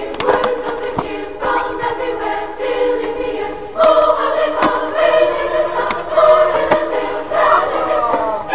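Choral music: a choir singing sustained, layered chords, growing louder about four seconds in.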